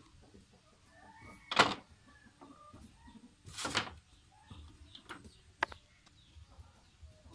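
Handling noises from hand work on small carved wooden toy parts: a sharp knock about a second and a half in, a half-second rustle a little later, and a few light clicks. Faint chicken and bird calls sound behind.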